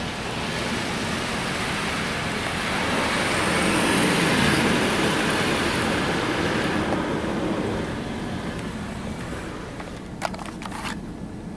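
Automatic car wash spray arch drenching the car, heard from inside the cabin: a rush of water on the body and glass that swells to its loudest about four seconds in and then fades, during what the riders take for the clear coat stage. A few light clicks near the end.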